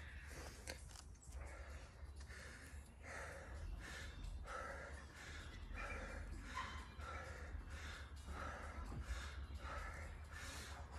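A man breathing hard and fast through the mouth, about one and a half quick breaths a second, winded from a round of burpees and squats.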